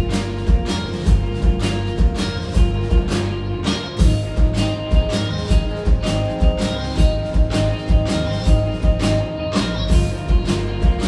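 Live rock band playing: electric guitars holding ringing chords over a steady drum beat, about three hits a second. The guitar notes change about four seconds in and again near the end.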